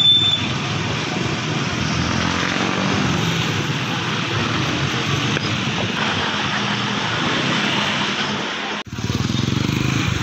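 Electric cotton candy machine's spinning head running with a steady whirring hum. The sound breaks off for an instant near the end, then carries on.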